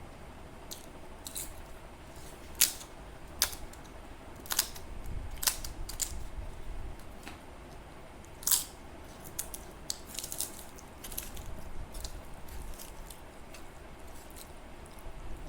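A person eating close to the microphone: chewing with irregular sharp crunches and clicks, a few of them distinctly louder.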